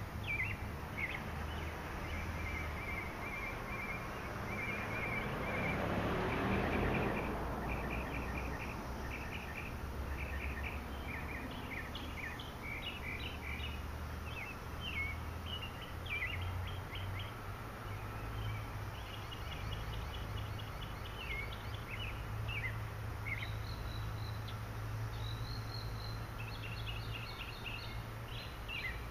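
Small songbirds chirping repeatedly in quick short notes, over a steady low rumble. A louder rushing sound swells and fades about six seconds in.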